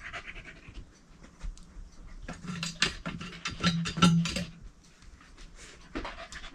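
A Shetland sheepdog scrabbling after a treat stuck under furniture: a brief stretch of panting, then, about two seconds in, a quick run of clicking and scratching from claws and paws that lasts a couple of seconds, with a few more clicks near the end.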